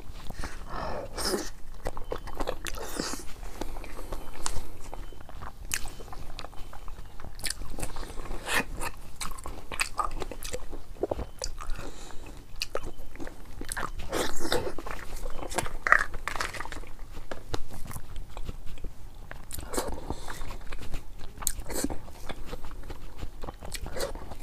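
A person eating close to a clip-on microphone: biting and chewing, with many sharp crackling clicks at irregular intervals.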